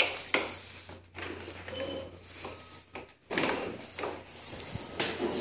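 Scraping and rustling handling noise with a few knocks, over a faint steady low hum.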